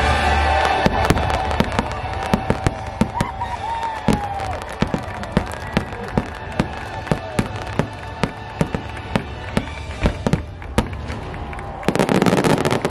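Aerial fireworks exploding in a rapid run of sharp bangs, about two or three a second, over the fading last notes of the show's music, then a dense barrage of bangs near the end.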